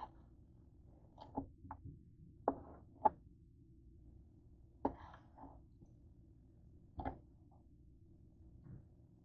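Kitchen knife slicing raw chicken breast, the blade tapping on the cutting board in short, sharp, irregularly spaced taps over a faint steady low hum.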